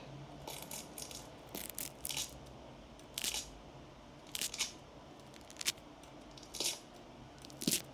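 Bone-cracking sound effect played back: a series of short, dry cracks and crunches, about a dozen spread unevenly, some in quick pairs.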